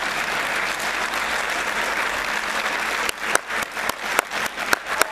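Audience applauding steadily; after about three seconds the applause thins and individual sharp claps close by stand out.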